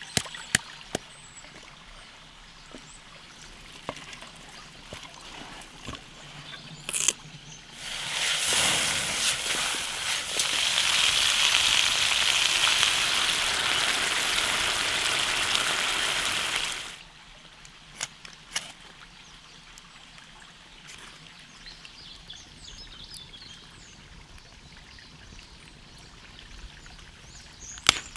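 Chicken curry simmering in a pan: a dense bubbling hiss that swells up about eight seconds in and stops short about nine seconds later. Around it is the faint trickle of a stream, with a few sharp clicks.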